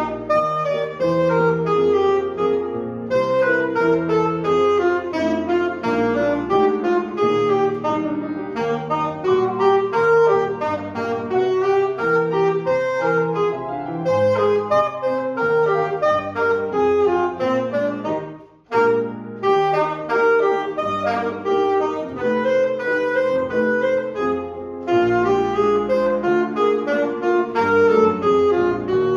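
Alto saxophone playing a melody with grand piano accompaniment. Both stop for a brief moment about two-thirds of the way through, then carry on.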